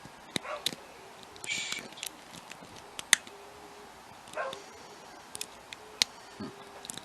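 Lock pick and tension wrench working the pins of a hand-held pin-tumbler challenge lock: scattered small metallic clicks, with two loud sharp snaps about three seconds in and again near six seconds, as pins are set back toward a deep false set. Short faint whines sound in between.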